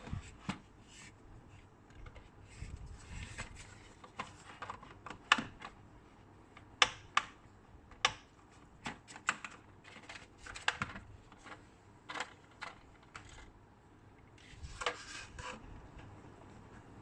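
Plastic toy excavator and dump truck being handled: irregular sharp clicks and knocks of hard plastic parts, with soft rustling between them.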